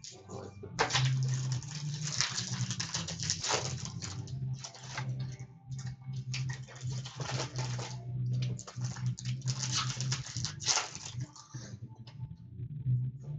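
Hockey card packs being torn open and cards handled: dense, irregular crinkling and rustling of wrappers and card stock, over a steady low hum.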